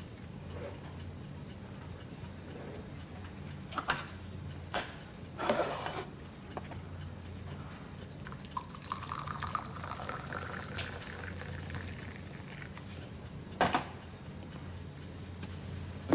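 Liquid poured into a cup for about four seconds in the middle, the pitch rising slightly as it fills. A few soft clinks and knocks of crockery come before and after it, over a steady low hum.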